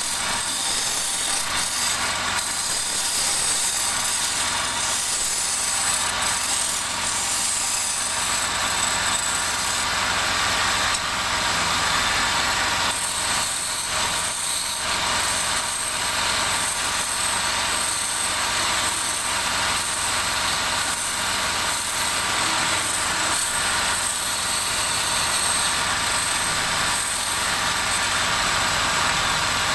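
Wood lathe running while a turning tool cuts the spinning wood: a steady hiss and scrape of the cut over the low hum of the machine, with short irregular scrapes as the tool works along the piece.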